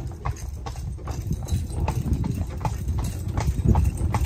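Hooves of a horse pulling a buggy, clip-clopping in a steady rhythm of about three to four strikes a second over a low rumble.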